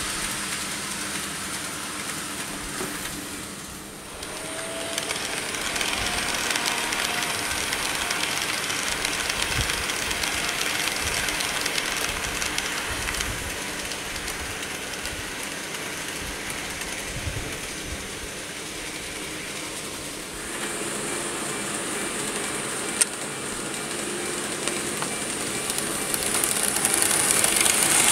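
KATO N-gauge 115 series model train running on layout track: a steady whir from its motor and wheels, with one sharp click about three-quarters of the way through, getting louder near the end as the train passes close.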